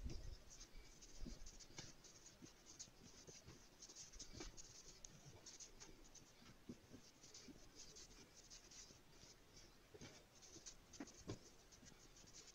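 Hands rubbing and scooping a crumbly flour mixture against a glazed earthenware dish, making a faint, scratchy rustling in uneven strokes. This is fat being rubbed into the flour until the dough is sandy.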